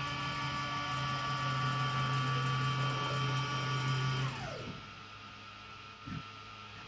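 Home-made CNC milling machine's table drive motor whining steadily, with a low hum under it, as the table makes a rapid traverse. The pitch falls away as the move ends about four seconds in, leaving a quieter hum and a faint knock.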